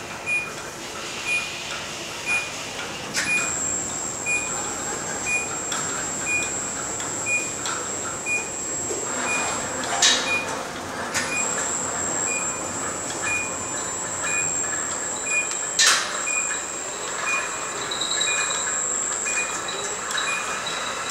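Motorised lift of an automated greenhouse bench system running as it moves a plant-filled growing bench. A high motor whine starts about three seconds in, breaks off with a clunk near the middle and starts again, over a steady series of short warning beeps, with a few sharp clunks as the drives start and stop.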